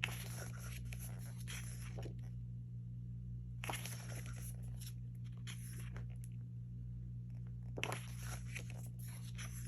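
Album photobook pages being turned and handled: paper rustling in several short bursts, over a steady low hum.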